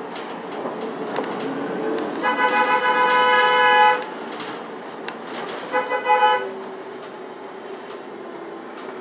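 A vehicle horn honks twice, each a steady single note: one long blast of about a second and a half, then a shorter one about two seconds later. Underneath is the steady running noise of a city bus in motion.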